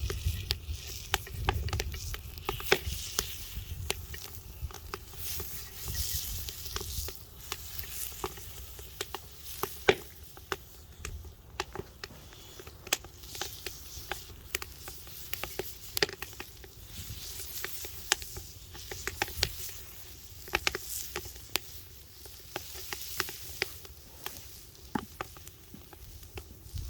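Log firewood fire crackling, with irregular sharp pops over a steady sizzling hiss. A low rumble rises and falls underneath.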